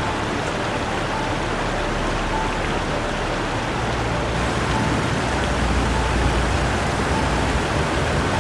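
Floodwater rushing across a flooded street: a steady, dense hiss of running water with a low rumble that grows a little stronger about halfway through.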